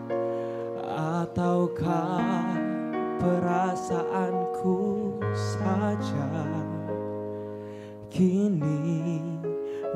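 A man singing a slow, nostalgic Indonesian song into a microphone, his voice wavering with vibrato over an accompaniment of held keyboard chords.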